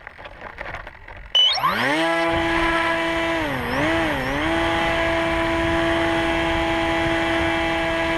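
Electric motor and propeller of a radio-controlled aircraft, close to the onboard camera: about a second and a half in it spools up with a rising whine, then holds a steady high drone. Its pitch dips twice briefly near the middle as the throttle is eased and brought back.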